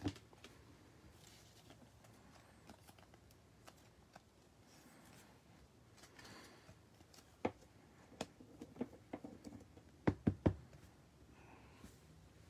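Baseball trading cards being handled: faint sliding and rustling as cards are flipped off a pack stack, with light clicks as they are set down on a table mat. Three quick, sharper taps come a little after ten seconds in.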